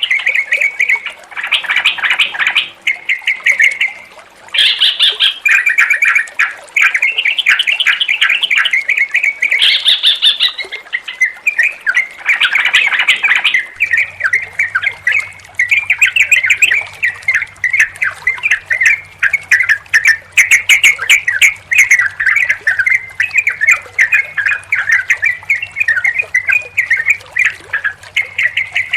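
Yellow-vented bulbuls (trucukan) chattering and calling nonstop in dense, overlapping runs of quick bubbly notes. About halfway through, the recording switches to another take with a faint low hum under the birds.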